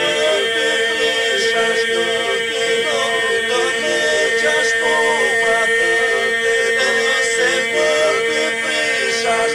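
Men's group singing Albanian iso-polyphony a cappella: the group holds a steady drone while the solo voices weave a bending melody above it.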